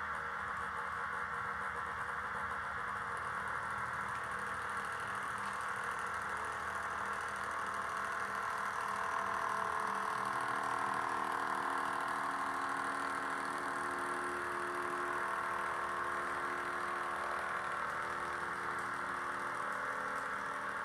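Märklin H0 model of a class 120 electric locomotive running its operating sound: a steady electric hum and whine with several tones that shift in pitch and swell a little around the middle.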